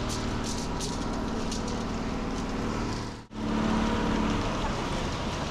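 Ready-mix concrete mixer truck's diesel engine running steadily, turning the drum while concrete discharges down the chute. The sound drops out briefly about three seconds in, then resumes with a stronger steady hum for about a second.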